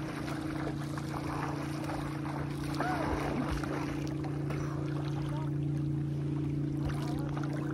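A steady low engine drone, unchanging in pitch, over a light rushing noise.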